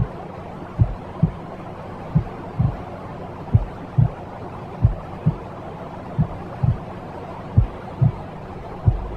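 Steady white noise with a low double-thump heartbeat, lub-dub about every second and a half, of the womb-sound kind played to soothe a baby to sleep.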